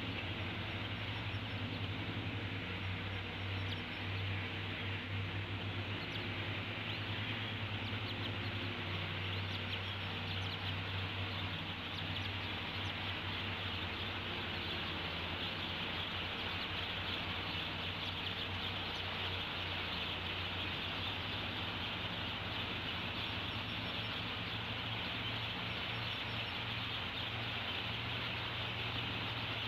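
Steady outdoor hiss with a low, constant hum, as picked up by a nest-cam microphone, and faint bird chirps in it.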